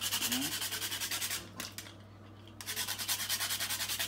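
Whole nutmeg being grated on a small hand grater: quick, rhythmic scraping strokes, several a second, stopping for about a second in the middle and then starting again.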